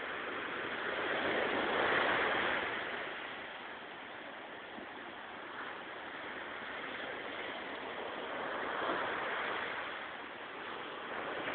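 Sea waves breaking and washing up the shore over a steady hiss of surf, swelling louder about two seconds in and again near the end.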